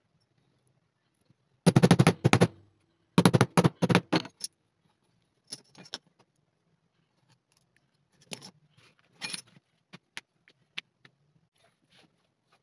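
Metal tools clattering against each other and on a cutting mat as they are handled and set down: two bursts of rapid clinking about two and three and a half seconds in, followed by scattered lighter taps and clicks as leather pieces and a steel ruler are moved.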